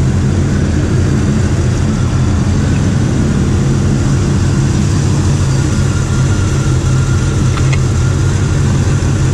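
1984 Chevy C10's mildly built 350 small-block V8 idling steadily, heard close at the open engine bay.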